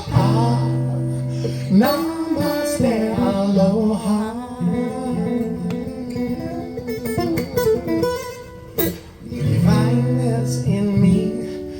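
Acoustic guitar being played, with a wordless singing voice over it between the sung lines of the song.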